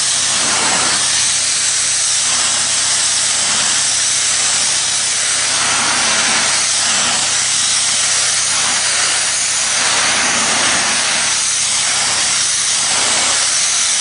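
High-pressure water jet at 500 bar spraying steadily as a loud hiss that swells a little now and then, over a low steady hum.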